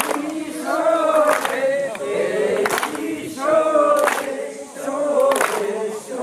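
A group of voices singing together in held, melodic phrases that repeat about every three seconds, with a sharp percussive strike about every second and a half.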